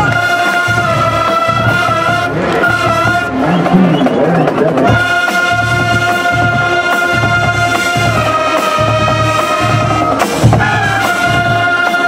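High school marching band playing: brass and woodwinds holding long chords over a steady bass drum beat of about two beats a second. Around the middle the melody turns busier and shifts before the held chords return.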